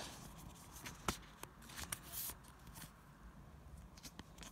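Pokémon trading cards being handled and shuffled: faint scattered clicks of card on card, with a brief rustle about two seconds in.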